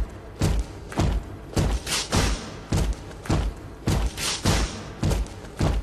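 Instrumental break of a pop dance track: a heavy kick drum beats evenly, about twice a second, with sharper snare-like hits in between and no vocals.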